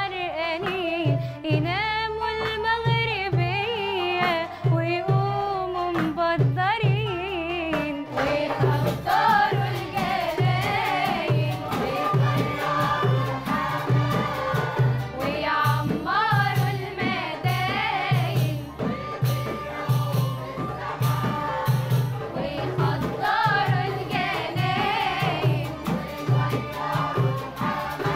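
A young woman sings a solo, a wavering, ornamented melody over a steady low beat. About eight seconds in, a choir of children and young people joins in, fuller and with sharp percussive strokes through the song.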